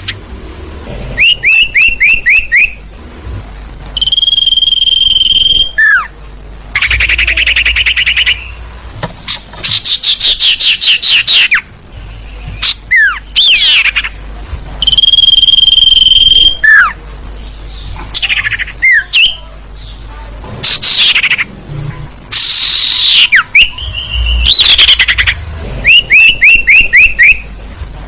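Sirtu bird lure recording: loud, repeated phrases of rapid trills, held high whistles and sharply falling notes, with short pauses between them. The uploader presents these as a female sirtu's calls, played to draw in males.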